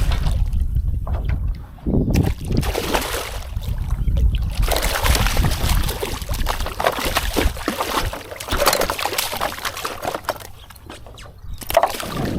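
Water splashing and sloshing at the side of a kayak in irregular surges, with wind rumbling on the microphone.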